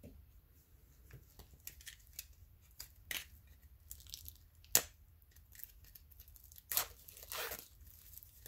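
Plastic shrink-wrap seal being torn and peeled off a Funko Soda can: a scatter of short crinkles and sharp snaps, a few of them louder, with a longer tearing rasp near the end.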